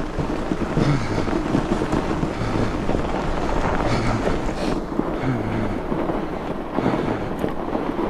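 Wind buffeting the microphone of a camera riding along on a fat bike, over the rumble of wide tyres rolling on packed snow.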